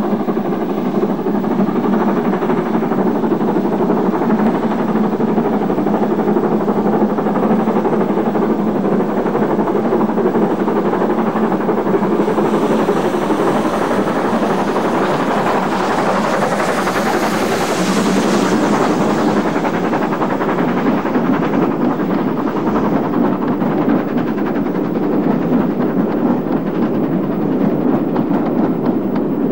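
LNER K4 2-6-0 steam locomotive hauling a passenger train, its exhaust beating steadily with the rumble of the coaches. The sound grows brighter and hissier about halfway through as the engine passes close by, then settles as the train draws away.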